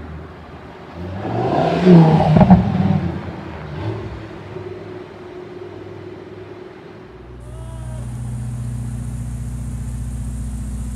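A Lamborghini Huracán's V10 revving hard as the car pulls away and passes, loudest about two seconds in, then fading as it drives off. After a cut about seven seconds in, a Ferrari supercar's engine idles with a steady drone.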